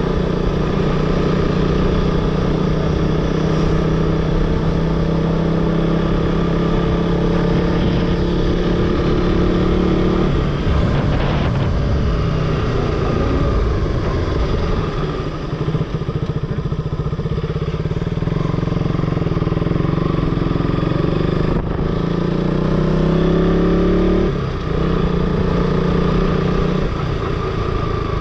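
Motorcycle engine running on the road at a steady pace, over a low rumble of wind. The engine note falls away about a third of the way through, climbs again near the end and dips briefly just after.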